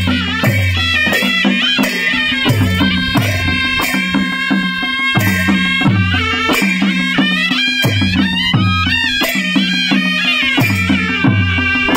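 Nepali Panche Baja folk music: a reedy sanai (shehnai) melody over low dholaki drum strokes that drop in pitch about once a second, with regular jhyamta cymbal clashes.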